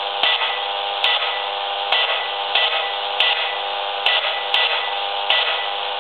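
AM radio picking up electromagnetic interference from a cordless phone: a steady electrical buzz through the radio's speaker, with a short crackling burst at each button press as a number is dialed, about eight bursts at uneven spacing.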